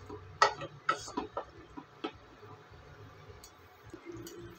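Wooden spatula knocking and scraping against a stainless steel pot while stirring a simmering tomato masala: a handful of sharp clicks in the first two seconds, then quieter.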